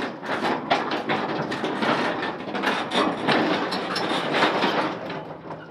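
1954 Caterpillar No. 6 crawler shovel moving on its steel tracks: a dense, continuous clanking and rattling of the track links, easing off a little near the end.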